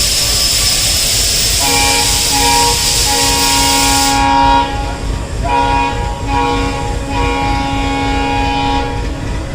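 Alco WDM-3D diesel locomotive horn sounded in a series of blasts with short breaks, several tones at once, the last blast long. Under the first blasts a loud hiss of air cuts off sharply about four seconds in.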